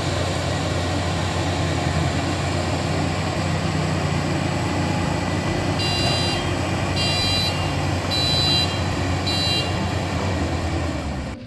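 Combine harvester engine running steadily under load, with its reversing alarm sounding four short high beeps in the second half.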